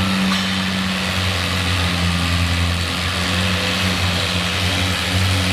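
Antique farm pulling tractor's engine running steadily at idle, its low note holding even.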